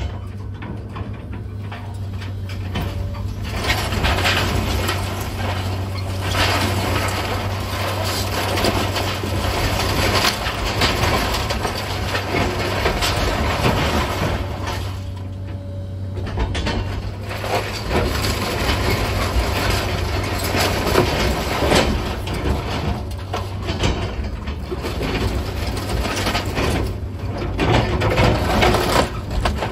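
Komatsu 200 hydraulic excavator's diesel engine running steadily under continual crunching and cracking of wooden house debris being broken up and moved, with a brief lull about halfway.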